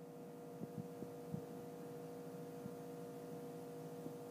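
Nebulizer compressor running with a steady electric hum as it puts saline mist through a face mask on a dog. There are a few faint knocks in the first second and a half.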